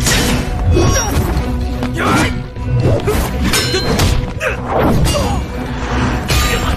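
Fight sound effects of a series of weapon clashes and heavy hits, several sharp impacts a second or so apart, over background music.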